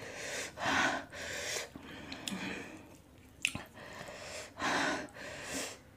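A series of short, hissing breaths drawn in and out through an open mouth, the way an eater reacts to the burn of 3x spicy fire noodles, with a few small mouth clicks between them.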